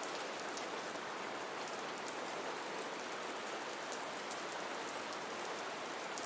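Steady light rain: an even soft hiss with many faint scattered drop ticks.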